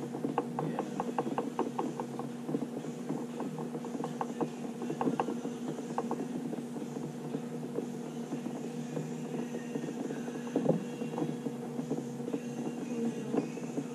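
A steady mechanical hum with quick rattling clicks over it, about four a second for the first six seconds, then fewer and more scattered.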